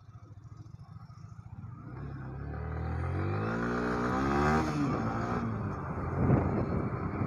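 Yamaha R15's single-cylinder engine pulling away from a stop and accelerating: it ticks over at first, then its pitch climbs steadily, drops at a gear change a little past the middle, and climbs again as road and wind noise build.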